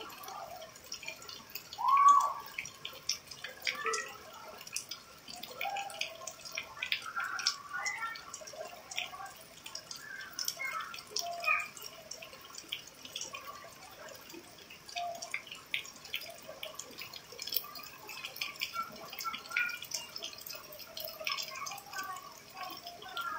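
Rain falling on wet paving stones and splashing into a puddle: a dense, irregular patter of sharp drop ticks and small plops over a steady hiss. One louder, brief blip stands out about two seconds in.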